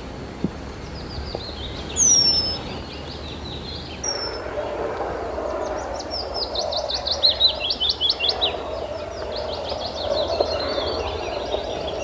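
Small songbirds calling and singing: two high, thin falling whistles in the first few seconds, then repeated rapid trilled phrases from about six seconds in, over a steady background rush.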